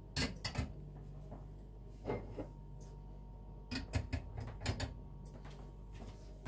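Glass mugs being set down on the wire tier of a metal dish drying rack: light clinks and knocks in a few short clusters, at the start, about two seconds in, and again around four to five seconds.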